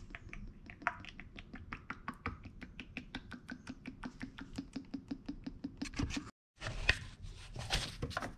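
Motor oil glugging out of a plastic quart bottle into a plastic funnel, a rapid, even run of glugs about six a second as air gurgles back into the bottle. After a break about six seconds in, a few seconds of handling noise, scraping and rustling.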